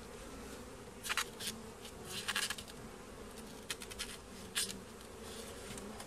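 Honeybees buzzing around an open hive, a steady hum, broken by several short clicks and scrapes as a wooden frame is worked loose with gloved hands.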